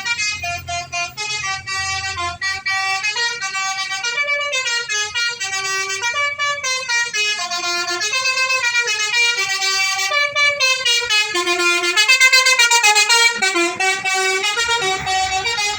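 Multi-tone 'telolet' horn on a Sumber Jaya bus playing a fast melody, its notes stepping up and down without a break and loudest about three quarters of the way through. A low rumble sits under the start and the end.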